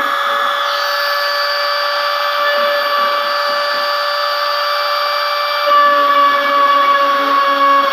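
CNC router spindle running at high speed, its small engraving bit cutting a logo into a metal sheet: a steady whine of several pitches over a cutting hiss. About three-quarters of the way through it gets slightly louder and a lower, broken tone joins in.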